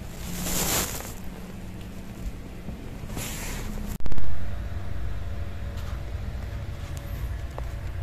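Two brief rushing whooshes in the first half. Then, about halfway, a sudden loud jolt, and a ceiling fan running with only two blades fitted: a steady low rumble with a faint hum and a few light ticks. It is the noise of an out-of-balance, wobbling fan.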